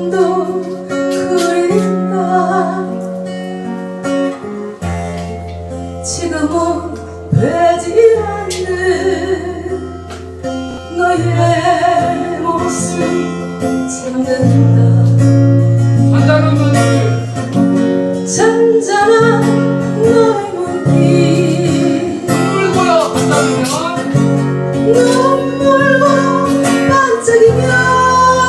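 A song with guitar accompaniment and a singing voice.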